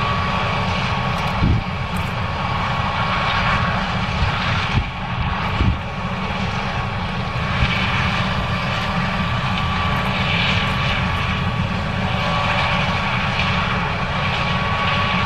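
John Deere 9610 combine running steadily while harvesting corn: a constant low diesel rumble with a steady high whine over it, and a few short knocks around a second and a half in and again near the middle.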